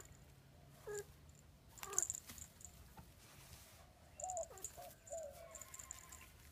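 A kitten giving several short, faint mews and squeaks while it plays, some falling and some wavering in pitch, with light rustling and scratching against a woven basket.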